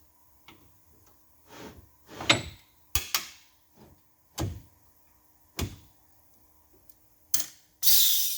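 Metal tools being handled at a machining setup: a series of irregular knocks and clunks, then a short, loud hiss near the end.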